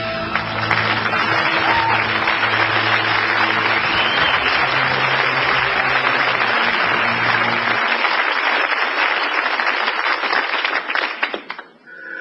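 Audience applauding, a dense steady clapping, with low music notes sounding underneath for the first two-thirds. The applause cuts off abruptly near the end.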